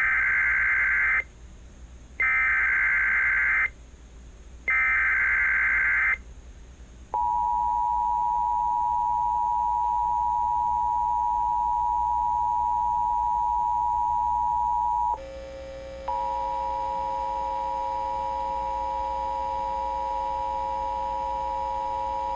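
Emergency Alert System tones. First come three SAME header data bursts of about a second and a half each, each a rapid two-pitch digital chatter. Then the EAS two-tone attention signal (853 and 960 Hz sounded together) holds steady for about eight seconds. After a brief dip a second or so later, the two-tone signal starts again, buzzier, with extra overtones and a lower tone beneath it.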